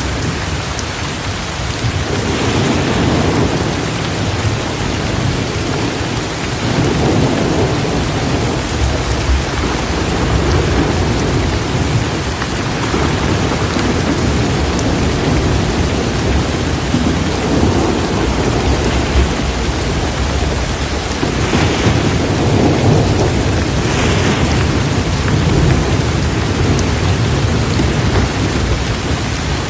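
Heavy rain falling steadily with continuous low rolling thunder, the rumble swelling several times, around two, seven, twenty-two and twenty-four seconds in.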